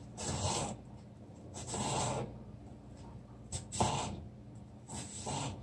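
Kitchen knife slicing carrot strips on a cutting board: four rasping strokes, about one and a half seconds apart.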